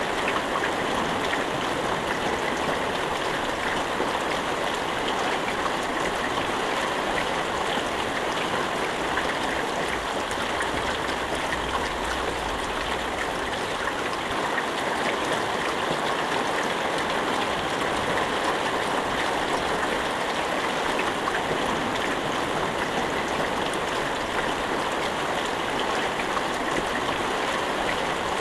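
Steady heavy rain falling, an even hiss with fine pattering and no thunder.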